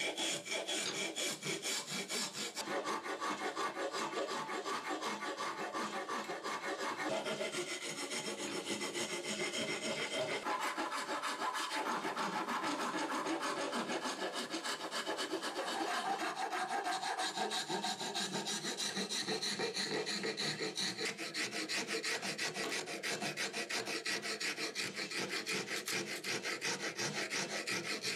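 Steel hand file stroking back and forth across a wooden handle blank clamped in a bench vise: a steady, unbroken run of quick rasping strokes.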